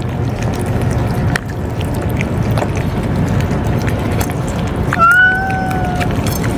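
A stray cat meowing once, a single call about a second long near the end, over a steady low background rumble.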